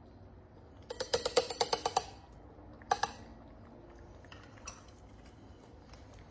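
A spoon tapping against a dish while dishing out wet cat food: a quick run of about ten sharp taps, then a couple more about a second later, followed by faint small clicks.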